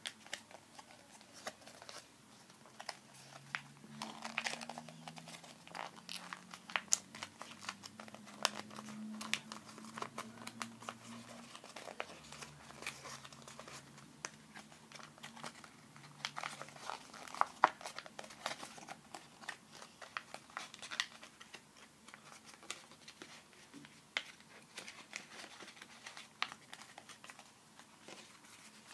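Sheet of paper being folded and creased by hand, crinkling with irregular sharp crackles and taps.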